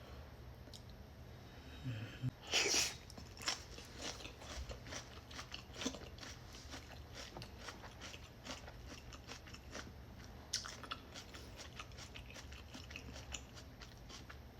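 Close-miked chewing and mouth sounds of a person eating, many small wet clicks throughout, with a louder burst about two to three seconds in.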